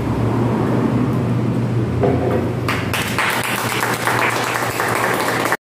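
A small group clapping by hand. It starts about halfway through and cuts off suddenly near the end, over a steady low hum.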